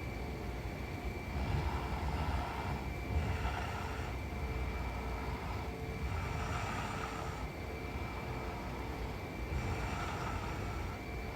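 A woman snoring in her sleep, slow rough breaths coming in swells every few seconds, over a faint steady high-pitched hum.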